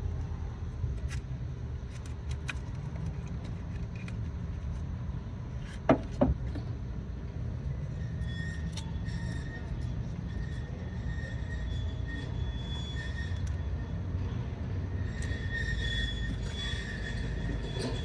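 Steady low rumble with two sharp knocks about six seconds in, close together. Faint high squealing tones come and go through the second half.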